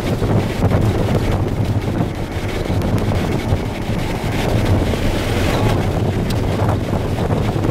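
Violent tornado winds buffeting a moving vehicle, heard from inside the cab as a loud, steady rushing rumble. A few sharp ticks come from dust and grit striking the body.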